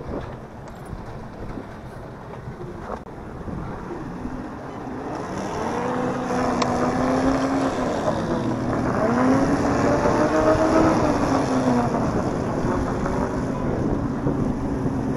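A 150-horsepower outboard motor running at low speed, its pitch rising and falling several times as the throttle changes, and getting louder from about four seconds in. Wind buffets the microphone.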